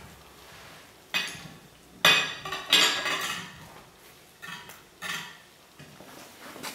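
Cooked lobster being taken apart at the plate: its shell cracked and crunched by hand, with knife and cutlery knocking on a china plate. It comes in several separate bursts, the loudest two to three seconds in.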